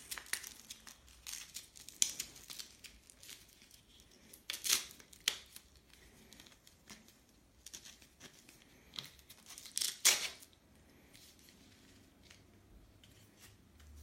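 Velcro hook-and-loop strap being fed through a slot in a plastic base unit and pulled tight: a series of short ripping scrapes, the loudest about 4.5 and 10 seconds in, after which the handling falls quiet for the last few seconds.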